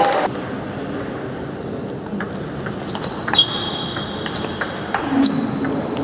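Table tennis balls clicking and bouncing between rallies, with a few high squeaks in the middle.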